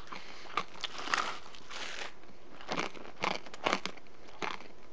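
Corn Nuts, hard toasted corn kernels, being crunched and chewed: a string of short, crisp, irregular crunches, roughly one every half second.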